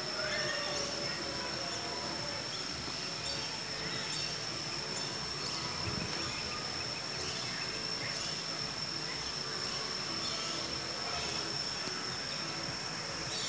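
Outdoor park ambience: a steady high-pitched insect drone, with faint short chirps over it.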